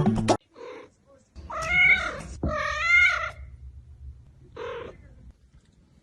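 A cat meowing: two drawn-out meows that bend in pitch, then a short one near the end.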